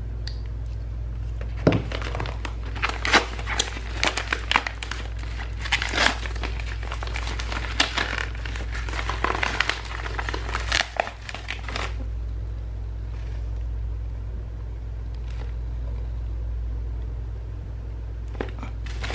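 Paper packaging being torn and crumpled by hand off a bubble-wrapped box: a dense run of crackling rustles that thins out after about twelve seconds. A steady low hum runs underneath.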